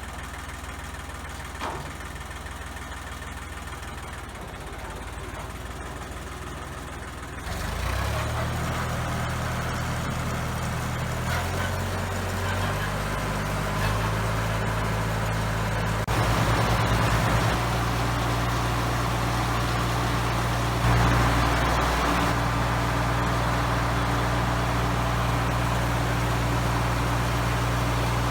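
Ford 1910 tractor engine running the PTO that drives a circular sawmill. It idles at first, then about 7 seconds in the engine speeds up and climbs in several steps as the mill is brought up to speed, with a whirring of the spinning saw over the engine.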